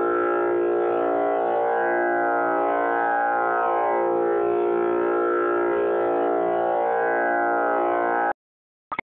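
Tanpura drone tuned to A#, a steady sustained chord of many overtones. It cuts off suddenly near the end, with a couple of brief blips in the gap.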